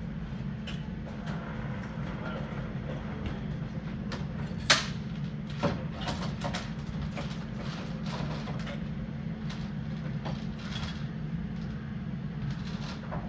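Steady low hum of a running machine, with a sharp clank about five seconds in and a lighter knock a second later.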